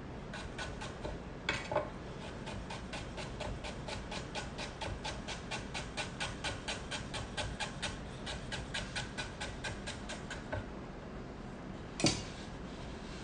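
Chef's knife slicing peeled ginger thin on a wooden cutting board: a quick, even run of blade taps on the board, about five a second, stopping a little before the end, followed by one louder knock.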